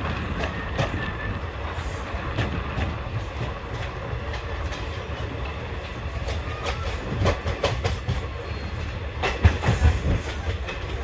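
Passenger train coach running along the track, heard from its window: a steady rumble of the wheels with clickety-clack over the rail joints. Louder clacks come in a cluster about seven seconds in and again about two seconds later.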